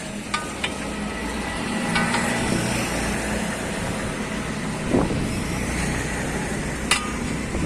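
A motor vehicle engine running steadily as traffic, with a few sharp knocks, the loudest about five seconds in and another near seven.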